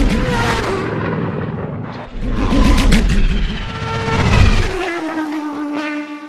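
Racing craft whining past in quick succession, with a brief whoosh as they go by; near the end one whine glides down in pitch as it passes.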